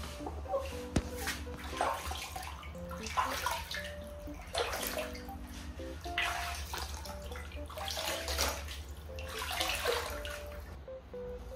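Water splashing and sloshing in a plastic basin as hands scoop and pour it over a hen, in repeated splashes about every second or so. Soft background music plays along.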